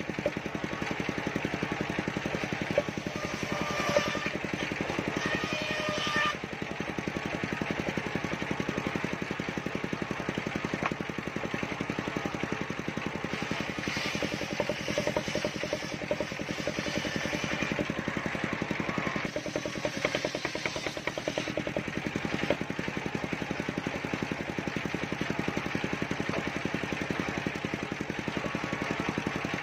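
Engine-driven circular sawmill running steadily, its large blade ripping mindi (chinaberry) timber into planks: a continuous engine drone under the noise of the blade cutting through the wood.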